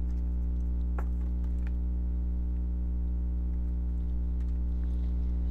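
A steady low drone of ambient background music, unchanging throughout, with a couple of faint clicks about a second in.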